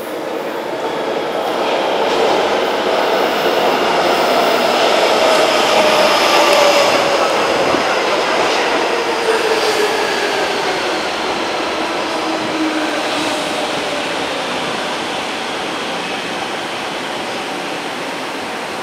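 Electric metro or commuter train moving along the platform, several whining tones from its traction equipment falling slowly in pitch over the noise of the wheels, as a train does when slowing to a stop. Loudest a few seconds in, then easing off gradually.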